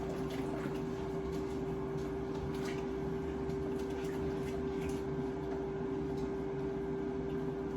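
Kitchen appliance fan running with a steady hum and one constant tone, with a few faint clicks and taps over it.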